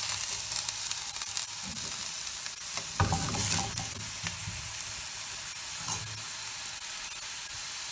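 Diced onion sizzling in oil in a stainless-steel frying pan while being stirred with a metal spoon, with the spoon scraping and knocking against the pan a few times, most strongly about three seconds in.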